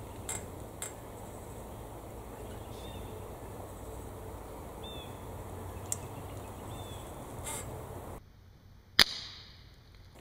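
Quiet woodland background with a few light clicks and faint bird chirps, then, about nine seconds in, a single sharp shot: a loud crack with a short ringing decay.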